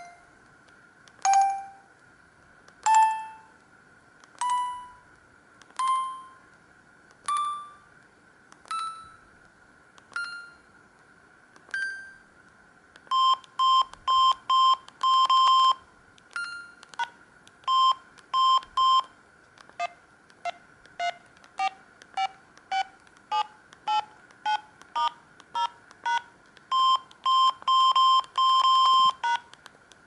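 Samsung SGH-B200 mobile phone keypad tones. First come xylophone-like notes, one per number key about every second and a half, each a step higher in pitch than the last and ringing away. From about 13 seconds, quick short electronic beeps come in runs as keys are pressed through the sound-settings menus.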